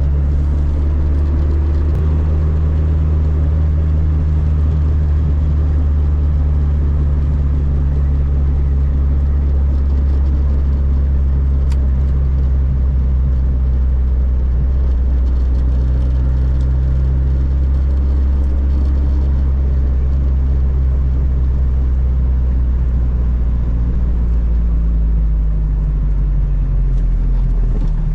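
Fiat 600 with a swapped-in 1.6-litre engine cruising on the motorway, its engine running at a steady drone with road rumble. The engine note shifts slightly near the end.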